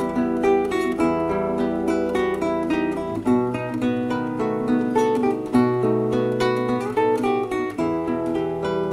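Acoustic guitar playing an instrumental introduction, a steady run of plucked and strummed notes over held bass notes that change a few times.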